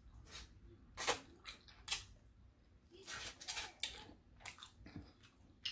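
Biting into and chewing a crispy fried catfish nugget with crunches: a sharp one about a second in, another near two seconds, a quick run of crunches around three to four seconds, then a few softer ones.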